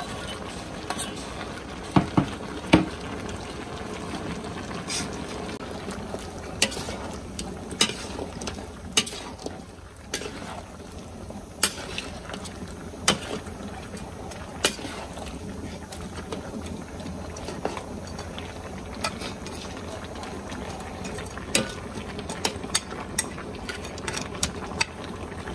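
A pot of thick stew simmering and bubbling while a metal ladle stirs it, clinking and scraping against the stainless steel pot. A few sharp knocks about two to three seconds in are the loudest sounds.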